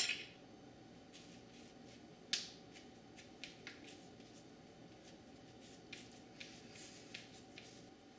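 A knife and fingers working on an aluminium sheet pan: a sharp click of the knife on the metal right at the start, another about two seconds in, then scattered faint taps as the chana dough is cut and pressed.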